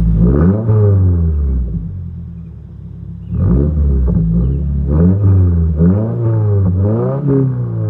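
Subaru WRX's 2.4-litre turbocharged flat-four revved through an aftermarket axle-back exhaust: one rev that falls away, then, about three seconds in, a run of quick rises and drops in engine speed.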